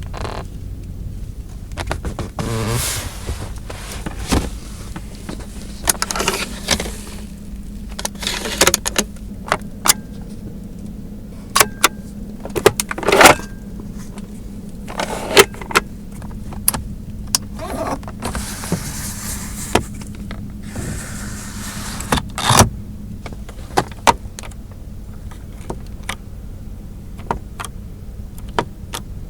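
Volkswagen Phaeton's body and cabin mechanisms at work: a string of sharp clicks and knocks, with a few stretches of whirring (the longest about two-thirds of the way through), over a steady low hum.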